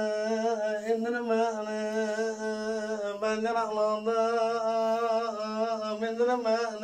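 A man singing an uzun hava, the free-rhythm Turkish folk song, solo: long held notes on a steady pitch, decorated with wavering melismatic ornaments.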